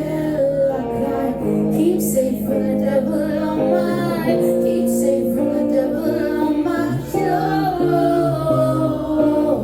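Live music from a soft, stripped-down band performance, with a woman singing over the accompaniment.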